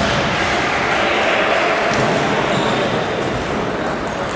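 Table tennis balls clicking on tables and bats, over a steady background noise that echoes in a large sports hall.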